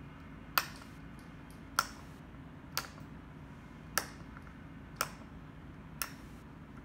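Rotary step switch on a load cell simulator clicking from one detent to the next as it is turned back down, six sharp clicks about a second apart. Each click takes the simulated load down by one 100 kg step while the scale is unloaded toward zero.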